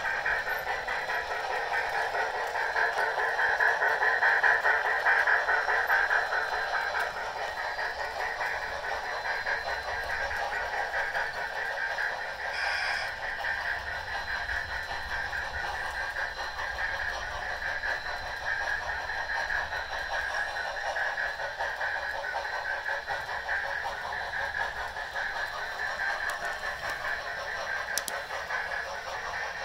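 Model steam locomotives with DCC sound decoders running, their small speakers playing steam sounds over the clatter of wheels on the track. Loudest about four seconds in, with a brief sharper sound about thirteen seconds in.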